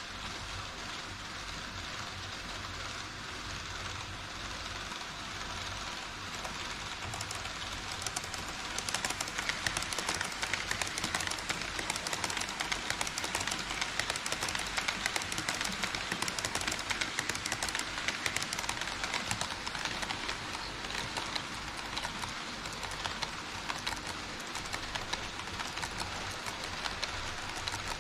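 HO scale model trains running on KATO Unitrack across a truss bridge: a steady rush of small metal wheels on rail. From about eight seconds in it grows louder, with rapid clicking over the rail joints, as the E5 Shinkansen and then the Twilight Express cars pass close by.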